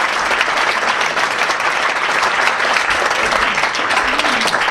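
Audience applauding, a dense steady clapping from a hall full of people.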